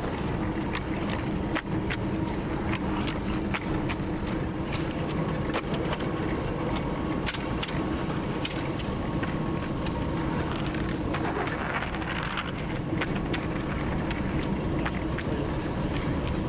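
TU7 narrow-gauge locomotive's V12 diesel running under way, a steady drone heard from the cab, with frequent clicks and knocks from the wheels on the track. A short hiss comes in about eleven seconds in.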